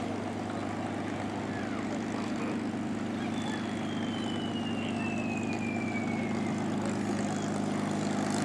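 Propeller airplane engine droning steadily in flight, growing slowly louder, with a faint high tone gliding down in pitch around the middle.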